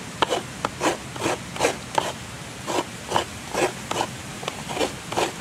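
Coconut meat being grated out of a half shell into a plastic bowl: repeated short rasping strokes, about two to three a second.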